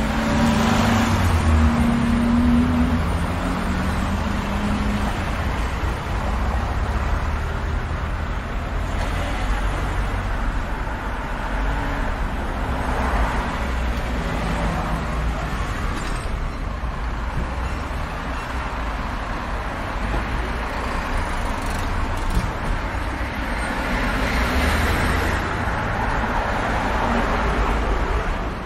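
City street traffic at an intersection: a continuous low rumble of engines and tyres, with cars passing one after another, each swelling and fading. There is a low engine hum in the first few seconds, and the loudest passes come about a second in and again near the end.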